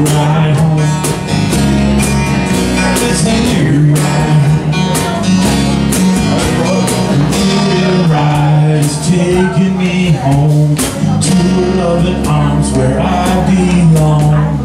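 Live acoustic band playing a slow country-style song: strummed acoustic guitars over a steady cajon beat.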